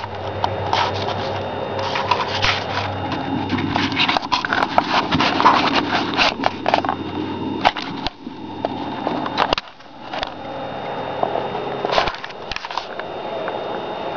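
Camera handling noise: rubbing, bumps and clicks as a handheld camera is moved about inside a carved pumpkin, over a low steady hum that fades about eight seconds in.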